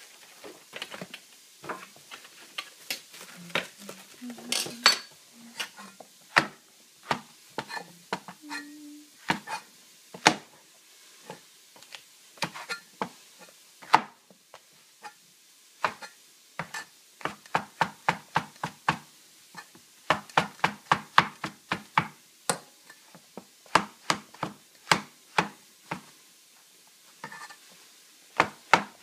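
A cleaver chopping shiitake mushrooms on a plastic cutting board: a long series of sharp knocks of the blade on the board, spaced out at first, with quicker runs of three or four a second later on.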